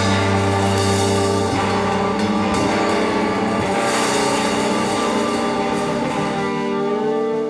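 Live rock band playing an instrumental passage: sustained electric guitar chords ringing over bass, with one note bending upward near the end.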